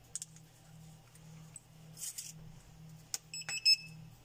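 Wireless restaurant pager system beeping: a few clicks, then a quick run of short, high-pitched electronic beeps near the end. A faint low hum runs underneath.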